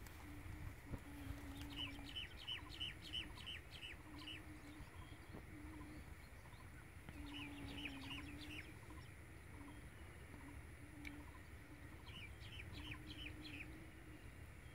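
Faint birdsong: a small bird calling in quick runs of about eight high notes, three times over, with a faint low hum coming and going underneath.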